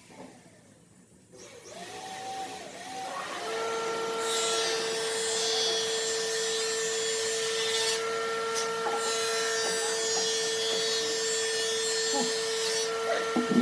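An electric power tool winds up to speed and runs at a steady pitch. A harsher hiss of it cutting into wood comes in two passes: from about four to eight seconds in, and again from about nine seconds to near the end.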